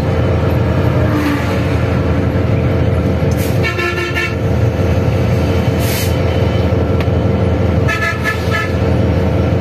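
Steady rumble of a road vehicle driving at speed, with road and wind noise and a steady engine drone. A vehicle horn sounds in a quick run of short toots about four seconds in, and again near the end.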